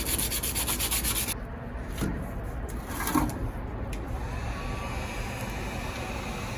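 Rapid, rhythmic back-and-forth strokes of sandpaper on a pocket bike's covers, cutting off suddenly about a second and a half in. A steady low hiss follows.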